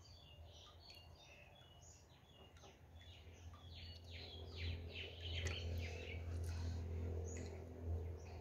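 Small birds chirping repeatedly, over a low steady hum that grows louder from about four seconds in. Faint swishing of water as a hand rubs caladium seeds in a metal basin.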